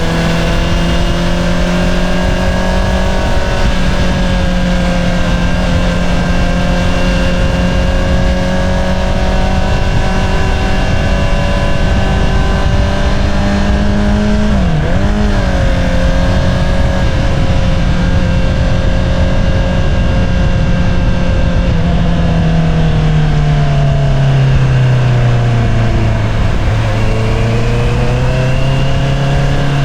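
A 2022 Honda CBR650R's inline-four engine runs through an Akrapovič single-outlet exhaust, holding fairly steady revs. About halfway through the pitch dips sharply and recovers, and near the end the revs fall off and then climb again.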